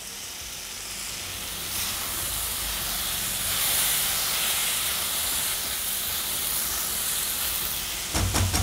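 Chopped kohlrabi sizzling and hissing in hot oil and onion-tomato masala in a kadai as it is stirred in with a silicone spatula; the hiss grows a little louder a couple of seconds in. A few short knocks come near the end.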